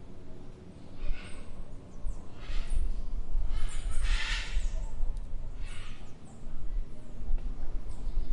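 A dog barking four times, a second or two apart, the third bark the loudest, over a steady low rumble of traffic.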